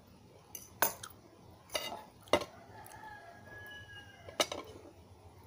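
Metal fork clinking against a plate, four sharp clinks spread over a few seconds.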